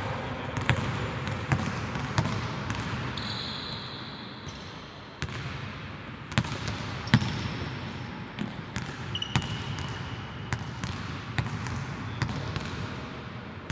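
Basketball bouncing on a hardwood court, about one bounce a second at uneven spacing, each bounce echoing in the large empty arena. Two short sneaker squeaks on the floor.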